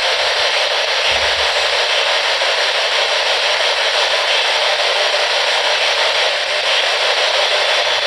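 Spirit box radio sweeping through stations: a loud, steady hiss of radio static.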